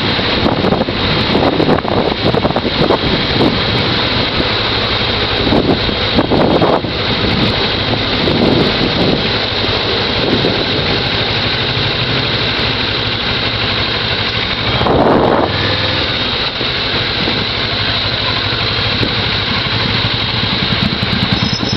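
Motorcycle engine running, heard from the moving bike with wind noise on the microphone, with a louder swell about fifteen seconds in.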